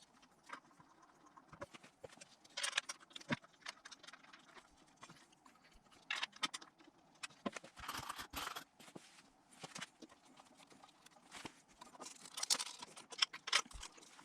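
Hand work with small metal fasteners: scattered light clicks, clinks and short scraping rustles as bolts are handled and fitted into an intake manifold, with the loudest cluster near the end.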